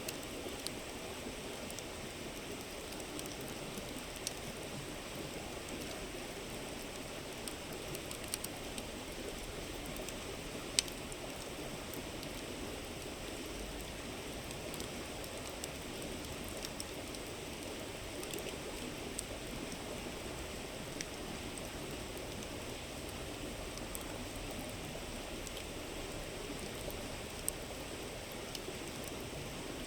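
A river babbling steadily, with a campfire crackling over it in scattered sharp pops, the loudest pop about eleven seconds in.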